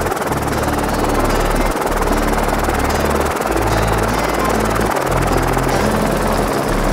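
Background music with a deep bass line that changes note about every one and a half seconds, over a steady, dense rushing sound.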